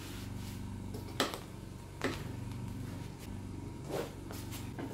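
A metal spoon knocking and scraping against a stainless steel pot of cooked rice: four short knocks spread over a few seconds, over a steady low hum.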